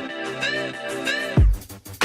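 Background electronic music: a repeating melodic phrase of bright notes, then a loud, deep bass hit that falls sharply in pitch about one and a half seconds in.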